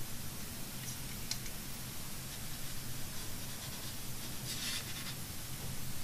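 Paintbrush brushing over watercolour paper and paint, with a couple of faint ticks about a second in and a short, louder brushing stroke about four and a half seconds in, over a low steady hum.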